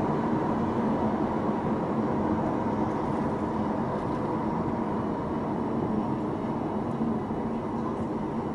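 Inside the cabin of a 2017 Audi A4 2.0T turbo four-cylinder on the move: steady road and tyre noise with a low hum, easing slightly as the car slows from about 55 to 40 mph.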